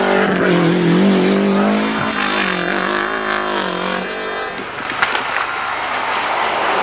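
Lancia Delta Group A rally car's turbocharged four-cylinder engine at race speed, the revs rising and falling as it takes a corner. Partway through it gives way to another Delta approaching, a noisier engine sound with one sharp crack.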